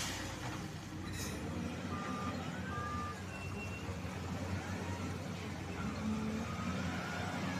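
Excavator diesel engines running steadily, with a few short high beeps and a wavering high whine over them.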